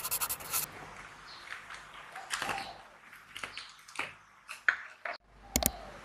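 Hands handling small objects on a desk: scattered clicks, taps and light scrapes as a plastic supplement bottle is picked up, with a sharp double click near the end.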